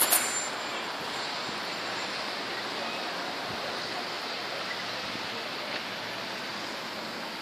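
Steady, even rushing ambience of the sea and the coastal town below, with no single sound standing out. A couple of sharp clicks come at the very start.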